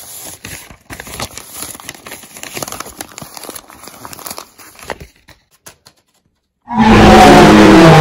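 A sheet of paper crinkling and rustling as it is crumpled and handled by hand. After a short silence near the end, a very loud, distorted blast with falling tones cuts in.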